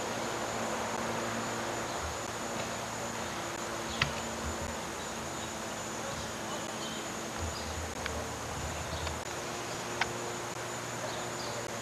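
Steady hiss with a faint high whine and a low hum, broken by two sharp clicks, about four and ten seconds in.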